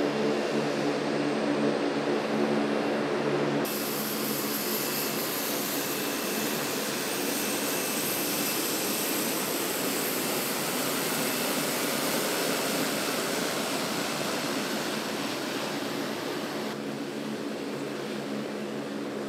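Twin Rolls-Royce AE 2100 turboprop engines of a C-27J Spartan running as the aircraft taxis: a steady propeller drone with a high hiss. The sound changes abruptly about four seconds in and again near the end.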